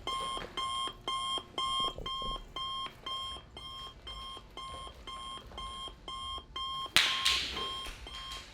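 Electronic alarm clock beeping steadily, about two and a half beeps a second. About seven seconds in, a sudden loud hit with a fading noisy wash, while the beeping goes on.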